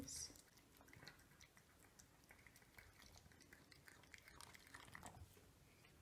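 Two cats eating, faint chewing with scattered soft clicks.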